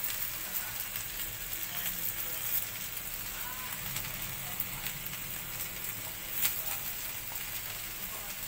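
Steady sizzling of oil and food frying on a hot grill plate, with a few light clicks scattered through it.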